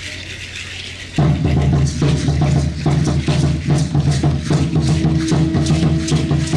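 Aztec dance drumming starts suddenly about a second in: a steady, loud drum beat with the shaking of seed-pod ankle rattles (ayoyotes) on every step. A soft hiss comes before it, and a held tone joins about halfway through.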